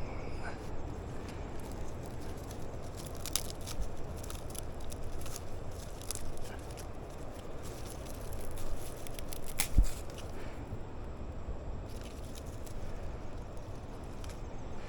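Small, newly lit campfire of sticks and paper crackling, with sharp pops now and then, over a steady low rumble.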